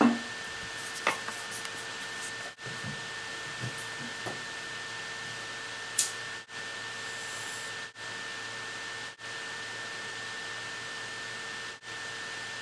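Steady hiss with a faint steady hum, like a fan running. A few light clicks come in the first seconds, and one sharp click about six seconds in.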